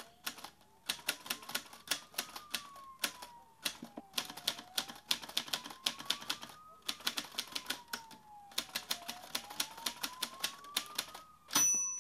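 Typewriter keystrokes clattering in irregular runs, laid over a faint siren wailing slowly up and down about every four and a half seconds. Near the end a single bell ding sounds, like a typewriter's end-of-line bell.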